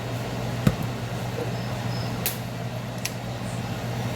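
Steady low hum with a few sharp clinks of kitchen utensils and seasoning containers as spices are added to a pan, the loudest clink under a second in.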